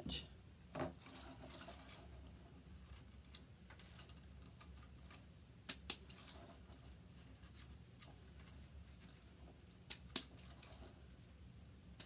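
Scissors snipping ribbon: a few sharp, separate snips scattered through, with soft rustling of ribbon being handled between them.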